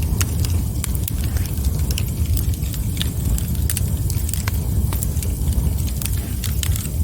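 Wood fire burning, with a steady low roar of the flames and frequent sharp, irregular crackles and pops of the burning wood.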